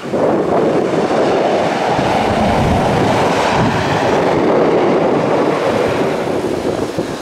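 Single-engine light aircraft rolling out along the runway after landing, its engine a loud, steady rumble mixed with wind buffeting the microphone.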